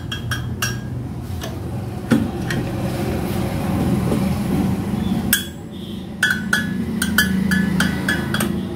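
A screwdriver turning a pressure-roller adjustment screw on a laminator's sheet-metal frame, backing the screw off slightly to free a jammed pressure roller. Sharp metallic clicks and clinks with short ringing: a few scattered ones, then a quick, even run of about ten clicks in the second half, over a steady low hum.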